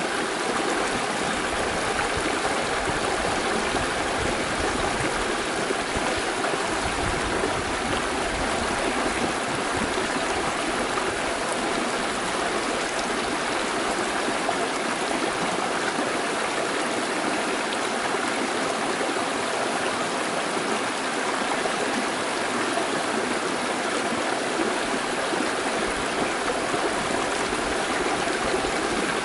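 Shallow mountain creek rippling and splashing over boulders in small rapids, a steady rushing and gurgling of water.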